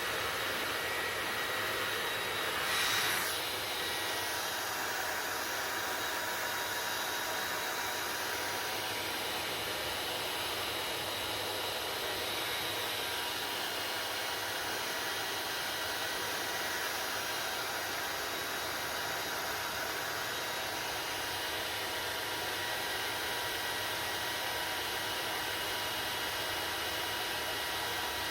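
Hair dryer running steadily: an even rush of air with a faint motor whine, and a brief louder whoosh about three seconds in.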